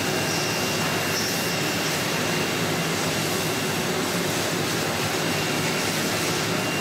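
Steady machinery noise, an even rushing sound with a faint constant high whistle.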